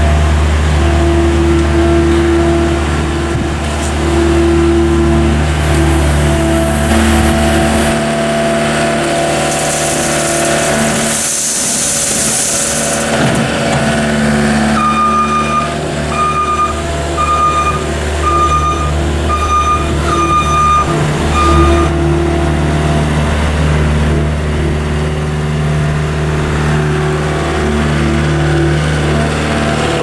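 John Deere skid steer's diesel engine running and working as the loader climbs a steel ramp with a bucket of cob corn, its engine note shifting a couple of times. A brief hiss comes about ten seconds in, and a warning beeper sounds about once a second for several seconds midway.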